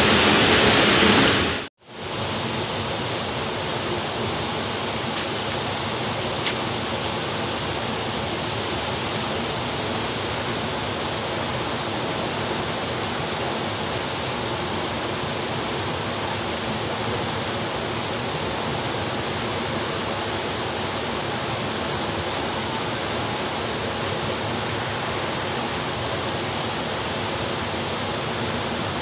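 Floodwater rushing past in a steady, even noise. About two seconds in, the sound cuts out for an instant and resumes.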